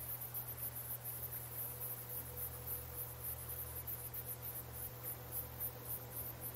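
Crickets chirping in a fast, even, high-pitched pulse over a faint low steady hum.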